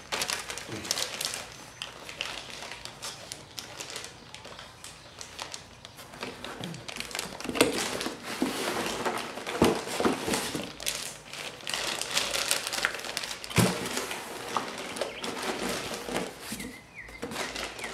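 Packaging being handled: plastic wrapping and paperwork crinkling and rustling, with scattered clicks and a few dull knocks.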